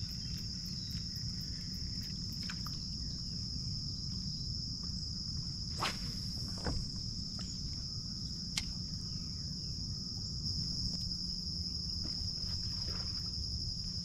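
Steady chorus of insects, a high, even drone with no break, over a low rumble. A few sharp clicks sound about six and eight and a half seconds in.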